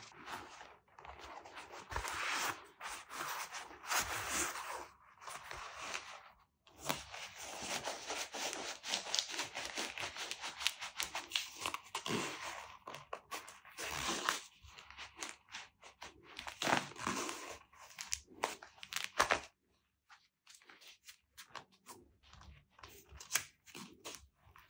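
Goalkeeper glove being handled and flexed close to the microphone: rustling, crinkling and scraping of the latex palm and foam body, with many quick clicks. It turns sparser and quieter about nineteen seconds in.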